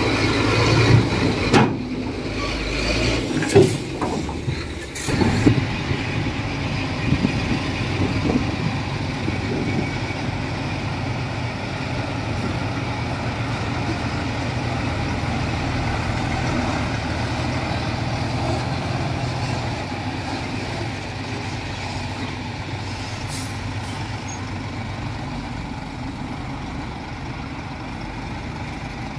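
Diesel engine of heavy earthmoving machinery running steadily under work, with a few sharp clanks in the first five seconds. Near the end the engine note drops back and the sound eases off.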